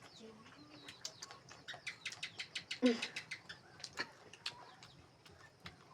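Close-up eating sounds: chewing and wet mouth clicks, a quick run of them thickest around the middle, with a brief low vocal sound about three seconds in.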